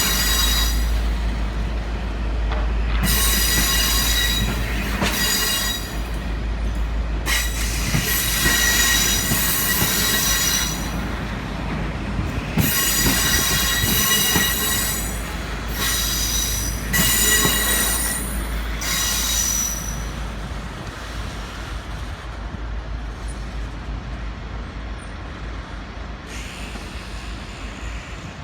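Steel train wheels squealing in repeated high-pitched bursts of one to three seconds as a locomotive-hauled train rolls out, over a steady low rumble. The squeals stop about twenty seconds in and the rumble fades.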